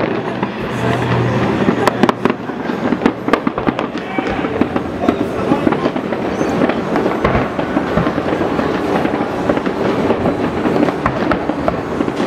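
Fireworks display at its height: a dense, continuous barrage of shells bursting, rapid bangs and crackles running into one another.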